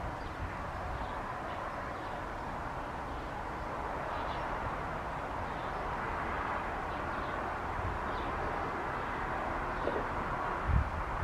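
Steady wash of distant vehicle traffic noise, swelling a little after a few seconds, with faint short high chirps here and there and low knocks of wind buffeting near the end.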